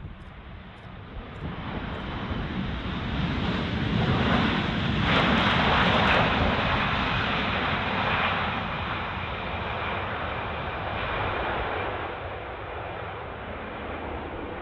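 Boeing 787-9 Dreamliner's jet engines roaring through the landing rollout. The sound swells to a peak about five seconds in and then slowly fades as the airliner rolls away down the runway.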